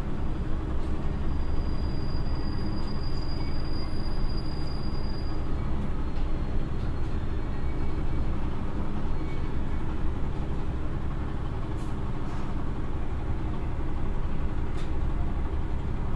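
Cabin sound of a JR East KiHa 100 diesel railcar on the move: the steady low drone of its Komatsu DMF11HZ (SA6D125H) six-cylinder diesel engine mixed with wheel and rail noise. A thin high whine sounds for a few seconds, starting about a second and a half in.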